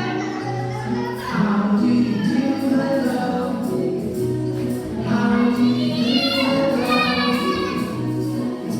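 A children's song: voices singing over a stepping bass line and a regular beat.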